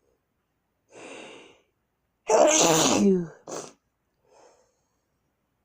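A person's sneeze: an audible intake of breath, then one loud sneeze with a falling voiced pitch, followed at once by a short second burst and a faint breath.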